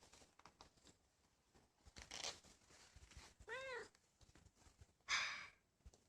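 A domestic cat gives one short meow, rising then falling in pitch, a little past the middle. There are soft, brief noisy sounds before and after it.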